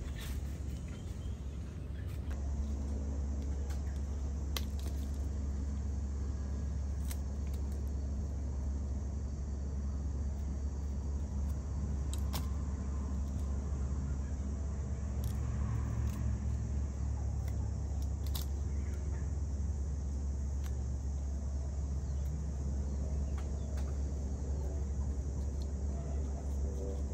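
A steady low rumble, with a few scattered light clicks from a machete cutting and peeling a cassava root.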